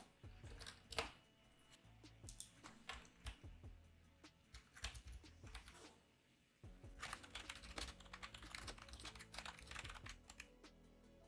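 Quiet computer keyboard typing. Scattered key clicks are followed by a short pause about six seconds in, then a fast run of keystrokes.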